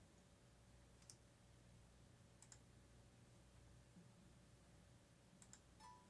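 Near silence: faint room hum with a handful of faint, sharp button clicks, two or three of them close together near the end.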